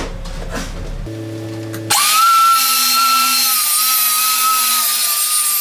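Makita circular saw starting up about two seconds in and cutting through a board: a loud, steady high whine over dense hiss.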